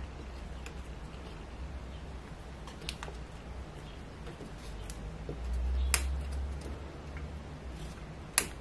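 Wooden model-kit pieces being handled and pressed together: a few light clicks and taps, a duller low rumble of handling around the middle, and a sharper pair of clicks near the end.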